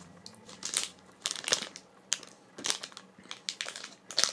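Takeaway biscuit-bar wrapper crinkling as it is handled and folded, in a run of irregular sharp crackles.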